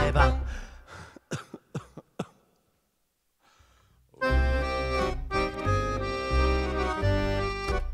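Accordion music: the end of one tune dies away, a few short sharp sounds follow, and after about two seconds of silence the accordion starts a new tune with a pulsing low bass line about four seconds in.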